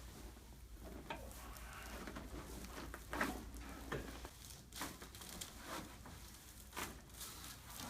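A handful of faint, short clicks and knocks from a chiropractic adjustment, the sharpest about three seconds in.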